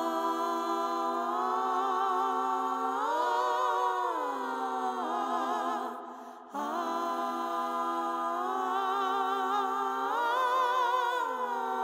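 A singer's voice into a microphone, holding long notes with vibrato in two phrases. In each phrase the pitch swells upward and then sinks back, with a brief break between the phrases about six seconds in.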